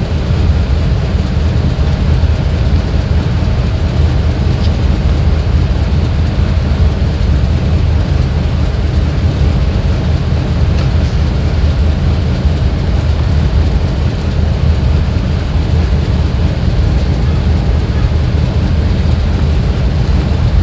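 2001 GMC Yukon's 6.0-litre V8 running at a steady idle, heard as a constant low rumble. The engine has a small misfire that makes it jerk a little, which the scan tool traces to cylinders 5 and 6.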